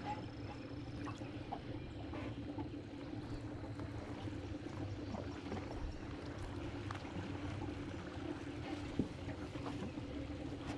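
Water gurgling and lapping against a small aluminium boat's hull, with scattered light knocks and one sharper knock about nine seconds in.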